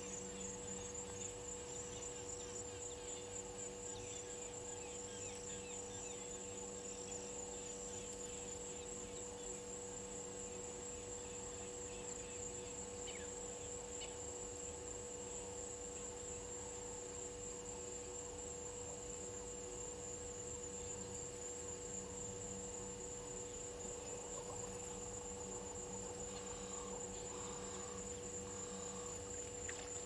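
Insect chorus: a steady, high-pitched trill, over a steady low hum made of several constant tones.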